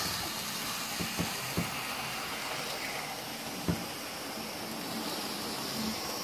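Hornby OO-gauge Thomas and Percy model locomotives running on the layout's track: a steady whirring, hissing running noise with a few sharp clicks, the loudest a little past halfway.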